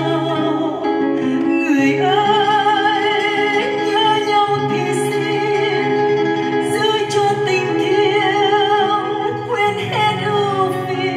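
A Vietnamese song played back through large floor-standing loudspeakers driven by 211 and 300B tube mono amplifiers: a singer holding long notes with strong vibrato over a steady instrumental accompaniment with sustained low notes.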